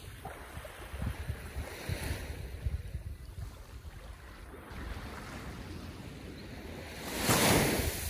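Gentle ocean waves lapping on shore, with one wave washing in louder about seven seconds in.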